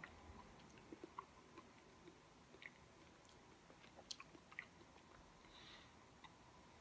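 Very faint chewing of a mouthful of Galia melon: a few small, soft mouth clicks scattered through near silence.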